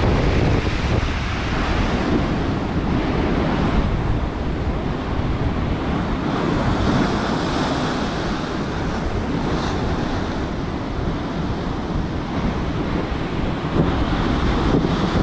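Storm surf breaking and washing along the shore, with strong wind buffeting the microphone.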